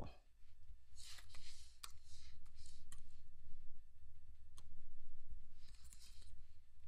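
Computer keyboard being typed on: scattered single keystrokes and a few short runs of typing, over a low steady hum.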